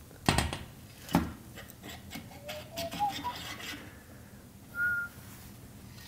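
Two sharp knocks and then scraping and clicking as metal 15 mm rods are fitted into the rod clamps under the camera rig. Over this comes a short whistled phrase: a few brief notes stepping up in pitch, then one longer, higher note near the end.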